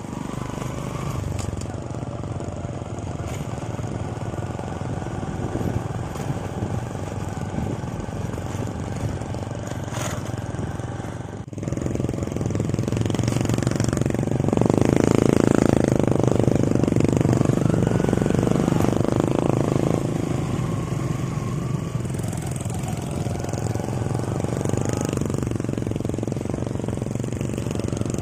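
Small motorcycle engines running as the bikes ride off along a muddy track. The sound gets louder about twelve seconds in and is loudest for a few seconds past the middle.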